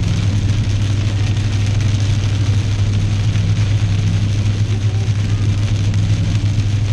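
A car driving in the rain, heard from inside: a steady low drone of engine and tyres under a constant hiss of rain and spray on the car.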